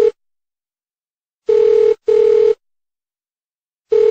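Telephone ringing in a British-style double-ring cadence: pairs of short, steady, low-pitched tone pulses, a pair about every two and a half seconds, signalling an incoming call.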